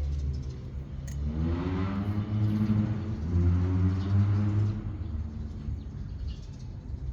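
A motor vehicle's engine passing by, a low rumble that swells from about a second in and fades away after about five seconds.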